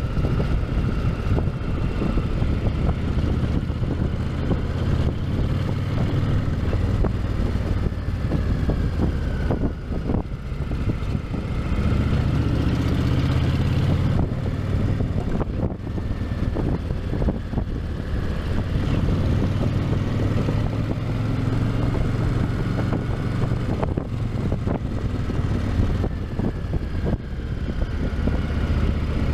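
Honda VTX 1300's V-twin engine running through its stock exhausts: a steady idle, revved up twice, about a third and about two-thirds of the way through.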